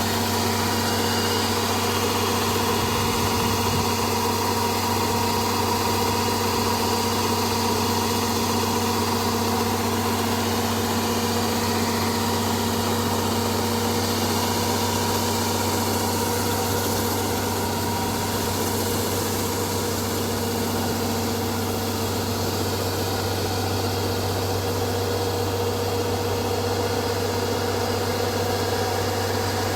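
Rice harvester's engine running steadily at constant speed, a continuous even hum with no change in pitch.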